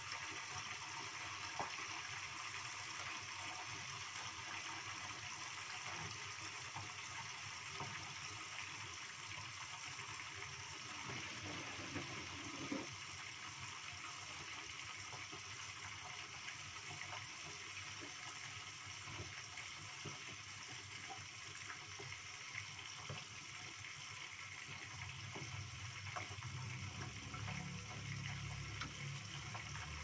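Whole pigeons frying in hot oil in a pot with a glass lid: a steady sizzle with scattered small pops. A low rumble joins near the end.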